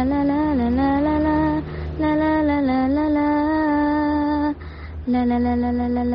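Background music: a woman's voice singing slow, long held notes in three phrases with short breaks between them, over a steady low drone.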